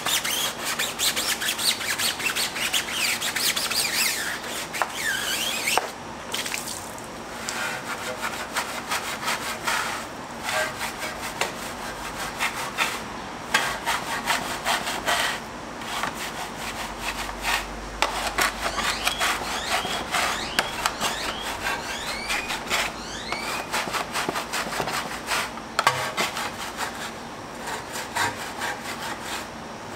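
A bristle wheel brush scrubs a foam-covered alloy wheel in quick back-and-forth strokes, making a wet, rasping rub with brief squeaks now and then.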